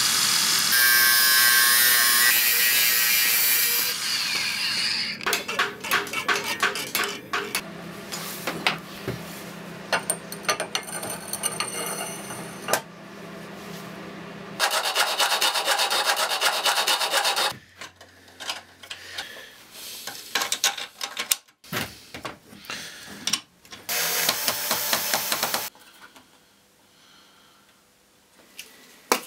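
A run of workshop tool sounds cut together: an angle grinder on a short piece of steel pipe at the start, then quick repeated rubbing strokes of a hand tool on wood, and further short bursts of tool noise, going quiet near the end.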